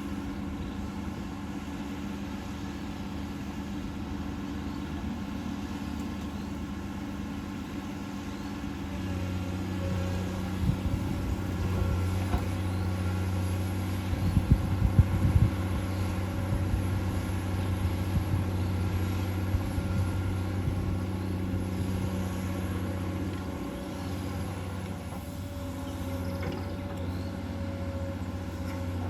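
Komatsu PC200-8 excavator's six-cylinder diesel engine running steadily, its drone growing louder about a third of the way in as it works under load. A few sharp knocks come in the middle.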